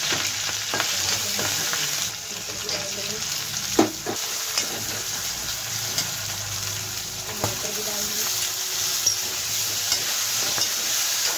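Green chillies, peas and chopped tomatoes sizzling in hot oil in a kadhai as a steel spoon stirs them. A few sharp clinks of the spoon against the pan come through the hiss, the loudest about four seconds in.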